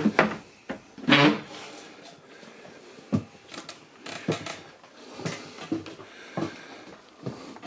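Wooden cupboard door knocking shut, with a brief louder rasp about a second in, then irregular light knocks of footsteps on wooden floorboards.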